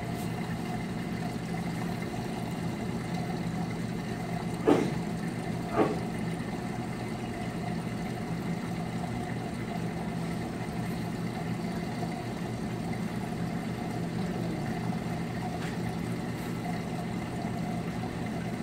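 Steady hum of an aquarium pump, with several fixed low tones and a faint watery hiss. About five seconds in come two short knocks about a second apart, the loudest sounds.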